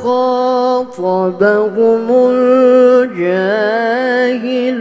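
A man's solo Quran recitation in the melodic tilawah style, amplified through a microphone. He holds long notes with ornamented turns, breaks briefly for breath about a second in, and sings a wavering run about three seconds in.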